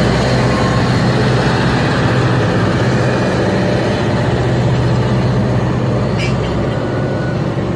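Heavy truck diesel engine running steadily with a deep, even hum, standing in for a mining truck.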